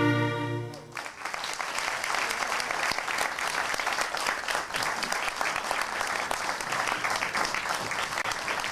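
String music ends about a second in, followed by steady audience applause.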